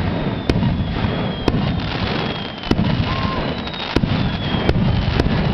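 Fireworks display: shells bursting with sharp bangs about once a second over continuous dense crackling, with thin high whistles drifting slightly down in pitch.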